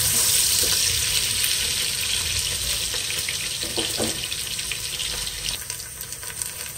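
Sliced onions sizzling in about a cup of hot oil in a pot, a steady hiss that slowly dies down. The onions are being fried to a light brown.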